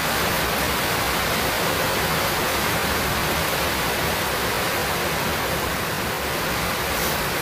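Steady, even hiss of background noise, with no other sound standing out.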